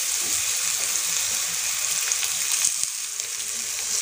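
Sliced potatoes sizzling in hot oil in a kadhai, a steady hiss with small scattered crackles, as a spice masala is sprinkled over them.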